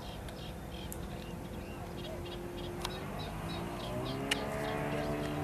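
Small birds chirping repeatedly in short high notes, over a faint steady hum that rises a little in pitch past the middle.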